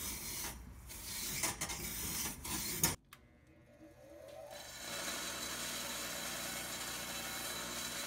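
A wire chimney brush scraping in strokes inside a propane refrigerator's burner box. After a sudden cut about three seconds in, a bench grinder's wire wheel spins up and runs steadily with the metal strangler held against it, scrubbing off carbon deposits.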